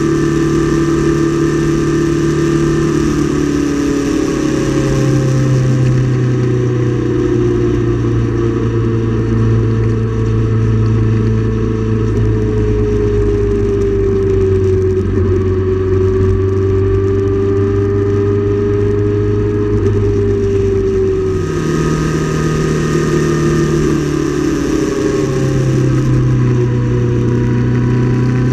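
Motorcycle engine running at road speed over a rush of wind. The engine note steps down about three seconds in, steps back up about three-quarters of the way through, and steps down again soon after.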